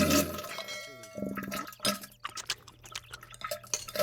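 Wet dripping and splattering sound effects edited together, with many sharp clicks over a steady low hum.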